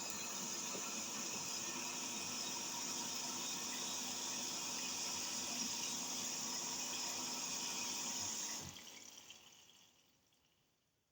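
Indesit WIUL83 washing machine taking in water at the start of a 30°C wash: a steady hiss of water running into the machine, which stops about nine seconds in and dies away to near silence.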